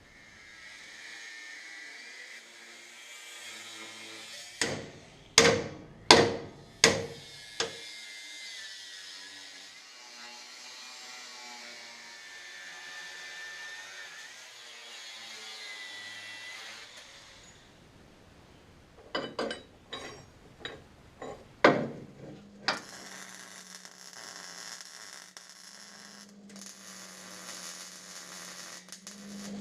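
Angle grinder cutting steel, a steady whine and hiss, with about five sharp hammer-like blows around five seconds in. Later comes a quick run of clicks and then a steady buzzing hiss with a low hum.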